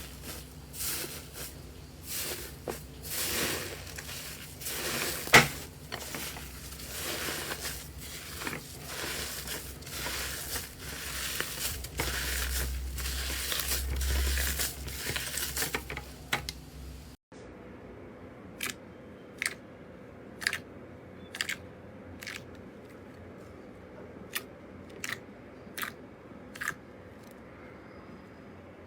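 Slime being worked by hand close to the microphone: a dense run of crunchy crackling and crinkling. After a sudden cut about two-thirds of the way in, it gives way to single sharp clicks about once a second.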